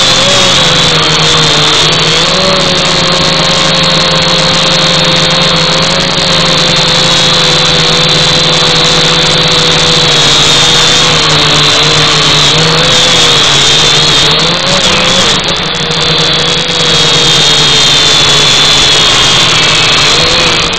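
Small quadcopter drone's electric motors and propellers whining steadily, with a high tone over a lower buzz and the pitch wavering slightly up and down. The level dips briefly about three-quarters of the way through.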